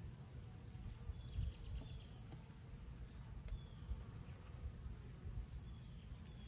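Outdoor summer ambience: a steady high insect trill, a few brief bird chirps between one and two seconds in, over an uneven low rumble.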